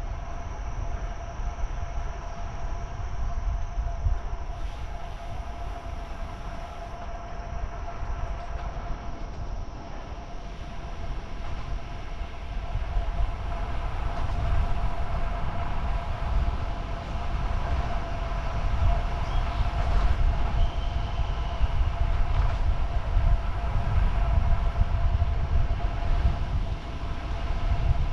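Wind rumbling over a camera microphone on a moving road bike, growing louder over the second half, with a steady whine running underneath.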